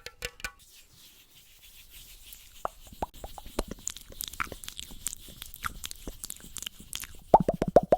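Close-miked ASMR trigger sounds. Scattered crisp clicks and crackles grow denser, then near the end give way to a quick, even run of louder pitched pops, about eight a second.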